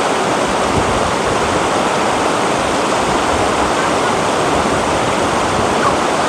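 Shallow rocky river rushing through small rapids: a steady, loud rush of water over stones.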